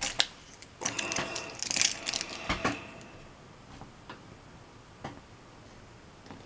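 Small clicks and scraping as a folding knife cuts and picks at the tape wrapped on a lock's key, busy for the first three seconds with a brief thin squeak, then a few faint single clicks.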